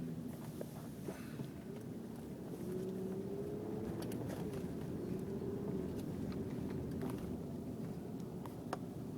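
Snoring, steady and low-pitched, with a few faint clicks.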